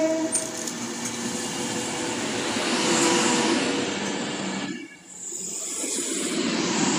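Avanti West Coast Class 390 Pendolino electric train passing close along the platform at speed: a loud rush of wheels on rail and air that swells about three seconds in, dips sharply for a moment near five seconds, then swells again.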